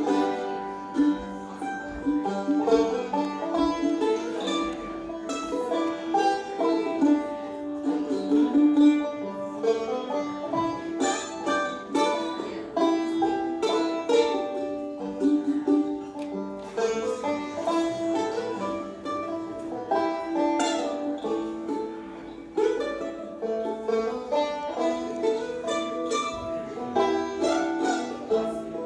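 Bluegrass string band playing a fast instrumental passage, with banjo picking to the fore over mandolin, fiddle and upright bass.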